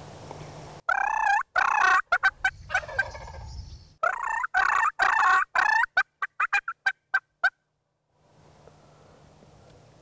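Osceola wild turkey gobblers gobbling: loud rattling gobbles about a second in and again about four seconds in, the second trailing off into a quick series of short notes.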